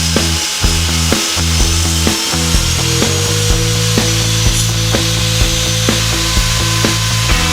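Background music with a steady beat over a table saw ripping hardwood.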